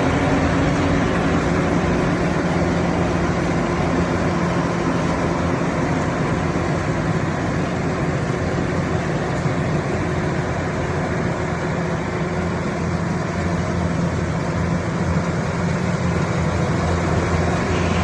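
Engine of a rice-harvesting machine running steadily, a continuous low drone.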